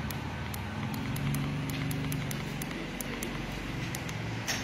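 Faint quick clicks, about three or four a second, from a finger repeatedly pressing a button on a Jack C3 overlock machine's control panel to step through its parameter numbers. Steady background noise runs underneath.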